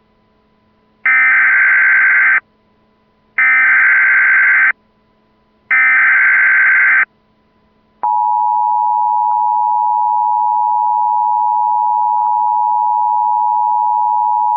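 Emergency Alert System tones: three bursts of SAME header data, each just over a second long with short gaps, then about eight seconds in the steady two-tone attention signal starts and holds. Together they mark the start of an emergency alert.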